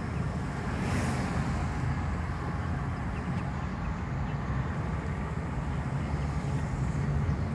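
Steady low rumble of a small ride moving along, running noise with no distinct events apart from a brief hiss about a second in.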